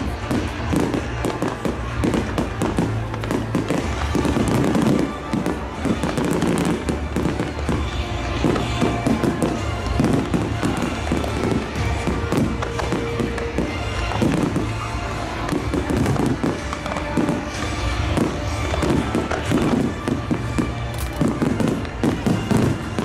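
Fireworks display going off continuously: a dense run of bangs and crackles, with music playing underneath.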